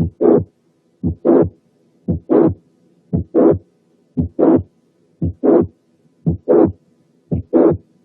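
Recorded heart sounds with a late systolic murmur of mitral regurgitation, about one beat a second. Each beat is a short first heart sound, a clear gap in early systole, then a murmur that fills the second half of systole up to the second heart sound. This pattern occurs in mitral regurgitation caused by mitral valve prolapse.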